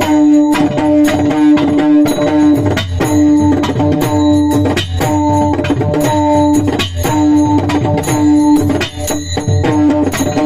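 Instrumental interlude of Warkari kirtan accompaniment, with no singing. Sustained pitched melody notes in repeating phrases play over a steady rhythm of drum and cymbal strokes.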